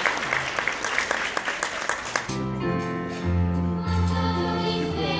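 Audience applauding; about two seconds in the applause gives way to the music of the next song, held chords over a low bass line.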